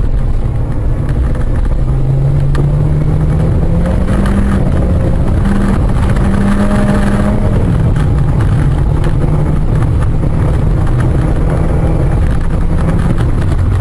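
Car engine running under heavy road rumble. Its pitch climbs over a few seconds, drops back about halfway through, then holds steady.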